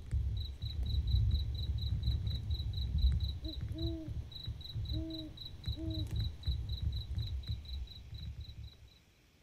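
A cricket chirping steadily, about four chirps a second, over wind rumbling on the microphone; an owl hoots three times in the middle. It all cuts off shortly before the end.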